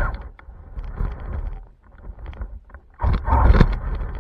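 Fast RC car driving on asphalt, heard from a camera mounted on the car: rumble and wind buffeting with scattered knocks from the rough road, swelling loud twice, at the start and again about three seconds in.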